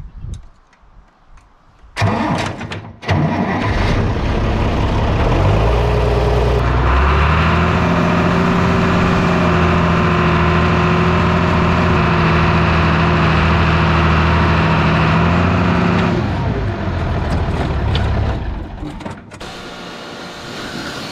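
International Harvester 686 diesel tractor engine cranking and catching about three seconds in, just after its fuel system has been bled of air following a filter change. It runs steadily, is revved up to a higher, steady speed about seven seconds in, and drops back to idle around sixteen seconds; a quieter steady hiss takes over near the end.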